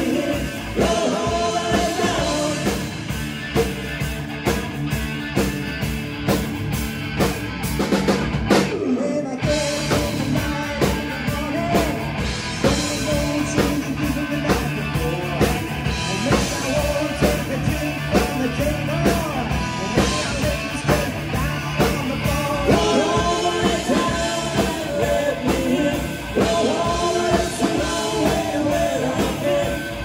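Live rock band playing: electric guitar through an amplifier, drum kit and a male lead singer.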